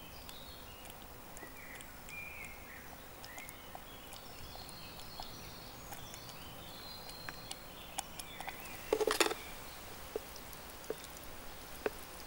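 Small birds chirping and twittering with short gliding calls, and a few light clicks. About nine seconds in, a brief loud clatter of handling, as the camp mess tin is taken up to serve.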